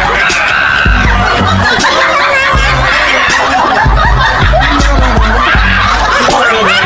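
Laughter over background music with a steady bass beat.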